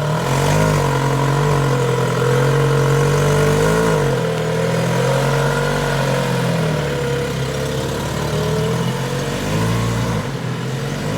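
2006 Lotus Exige's 1.8-litre Toyota four-cylinder engine running on its stock exhaust at low revs, its pitch rising and dipping slightly a few times.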